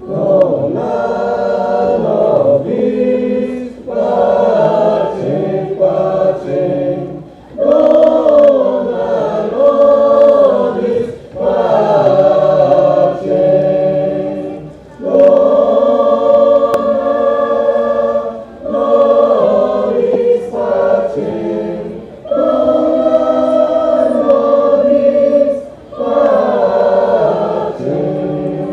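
A choir singing in several parts, in phrases a few seconds long with short breaks between them.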